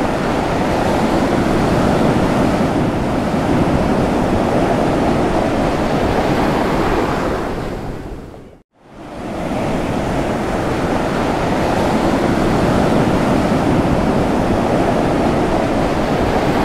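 Ocean surf washing onto a beach, a steady rush of waves. It fades out about eight seconds in, breaks off for a moment, then fades back in.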